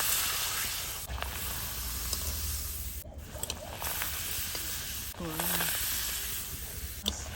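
Food sizzling as it cooks in a hot pot, a steady hiss broken by a few abrupt cuts, with a brief voice about five seconds in.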